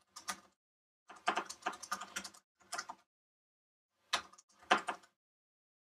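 Typing on a computer keyboard: runs of quick key clicks in several bursts, with pauses of about a second between some of them.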